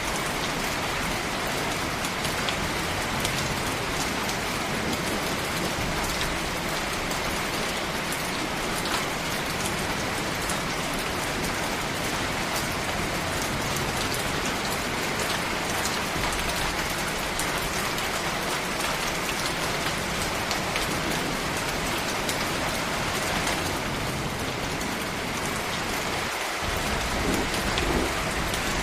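Steady tropical rain falling, a dense even hiss with many separate drop hits through it. A low rumble comes in near the end.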